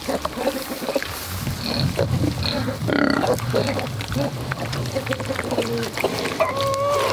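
Kunekune piglets grunting and smacking their mouths as they chew banana, with a brief higher-pitched call near the end.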